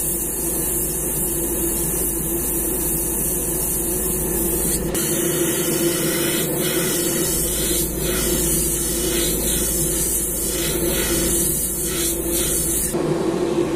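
Airbrush spraying paint in light passes with a steady hiss, over the steady hum of a spray booth's fan. The hiss cuts off near the end.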